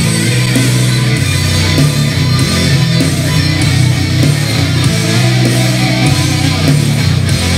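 Loud rock music with guitar and strong bass notes, played through a Genius SP-HF1800A speaker system (two woofers and a tweeter per tower) as a sound test.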